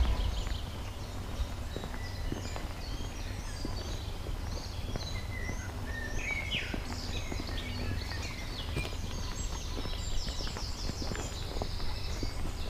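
Several songbirds chirping and trilling in quick, overlapping phrases, with scattered light crunching steps on a gravel path and a steady low rumble underneath.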